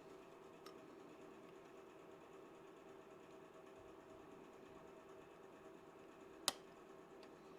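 Near silence with a steady faint hum, broken by one sharp click about six and a half seconds in and a much fainter click under a second in.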